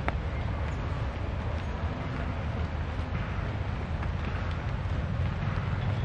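Steady low wind rumble on the microphone over a soft background hiss, with a few faint ticks.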